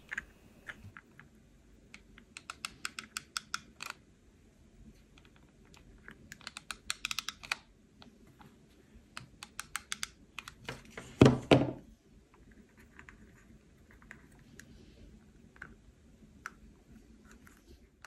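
Light plastic clicks and taps in several quick runs as a hot glue gun is worked along a 3D-printed plastic case, with one louder thump a little after the middle.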